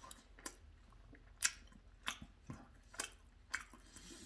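A person chewing a mouthful of sandwich close to the microphone, with a short wet click or smack of the mouth about every half second.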